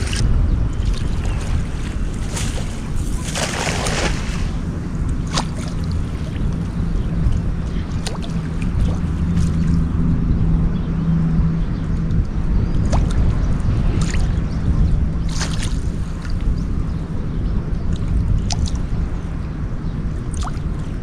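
Wind rumbling on the microphone over water, with a faint steady low hum that swells in the middle. Scattered short clicks and splashes, with a longer splashy burst about three to four seconds in.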